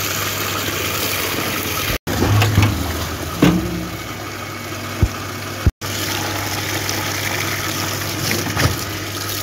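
Soapy water splashing and pouring as wet blankets are worked and wrung in a galvanized metal tub and the tub is tipped out onto a concrete floor, with a few knocks against the tub. A steady low hum runs underneath, and the sound cuts out abruptly twice.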